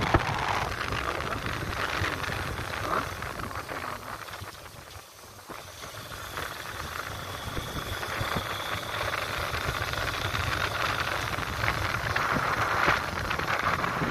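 Motorcycle riding noise heard from a helmet-mounted camera: wind rushing over the microphone, with the engine and tyres on a wet road beneath it. The noise drops off briefly about five seconds in, then picks up again.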